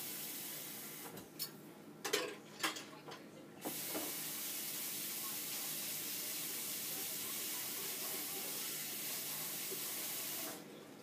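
Kitchen tap running water into the sink, filling a cup. It stops about a second in, a few clinks of dishes follow, and it runs steadily again from about three and a half seconds until just before the end.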